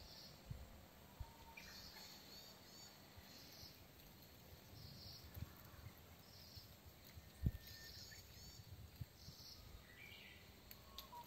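Faint outdoor woodland ambience with a small bird giving short high chirps over and over, roughly once a second. A few soft low thumps break in, the strongest about seven and a half seconds in.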